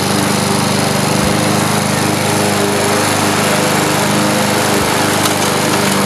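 Gasoline walk-behind rotary lawn mower engine running steadily at a constant pitch as it is pushed across grass.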